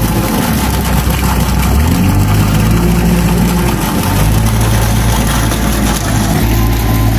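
A machine's engine running steadily, its pitch dipping and rising a few times, in the first half and again about four seconds in.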